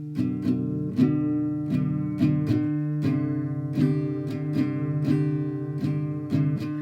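Instrumental music: plucked guitar notes in a steady, flowing picking pattern, each note struck sharply and ringing on.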